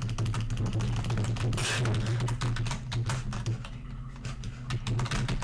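Rapid clicking and tapping of a computer keyboard and mouse, over a steady low hum.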